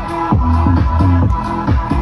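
Loud electronic dance music with a steady four-on-the-floor kick drum, about two beats a second, and a sliding bassline.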